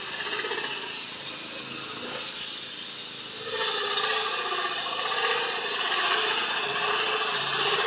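KSF KF 500 electric concrete core drill running steadily, its core bit grinding into concrete, with a slight change in pitch about three and a half seconds in.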